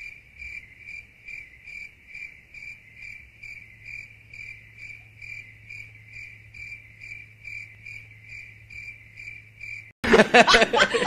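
Cricket-chirping sound effect: a steady high chirp repeated evenly a little over twice a second, over a low steady hum. It is the comedy 'awkward silence' gag. It cuts off suddenly about ten seconds in, when voices start.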